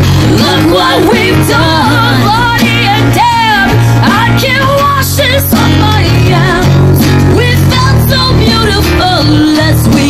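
Live acoustic rock band playing: two acoustic guitars and a cajón beat under two women singing, their voices gliding and bending in pitch over steady bass notes.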